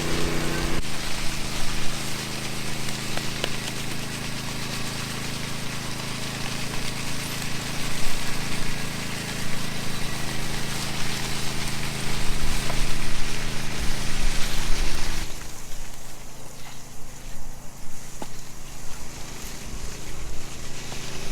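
An engine running steadily at idle, with a steady rushing hiss over it that cuts off about fifteen seconds in while the engine hum carries on.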